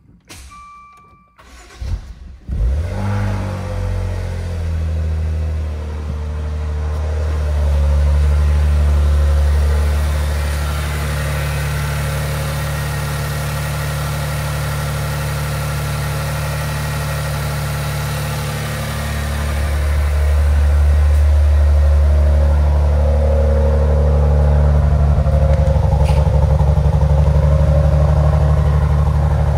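2015 Maserati Ghibli's 3.0-litre twin-turbo V6 cranked and started about two seconds in, just after a short electronic beep from the dash, then idling steadily. Near the end it is heard at the twin tailpipes, louder, with the exhaust pulses coming through.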